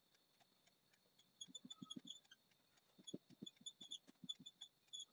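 Faint taps and scratches of a marker pen writing on a whiteboard: an irregular run of short strokes beginning about a second and a half in.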